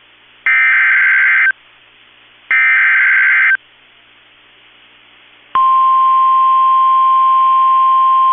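NOAA Weather Radio Emergency Alert System tones: the last two of three screechy digital SAME header bursts, each about a second long and a second apart. After a short pause, the steady 1050 Hz weather radio warning alarm tone starts about five and a half seconds in, signalling a severe thunderstorm warning.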